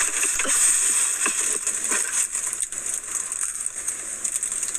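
Steady hiss with scattered faint crackles and clicks.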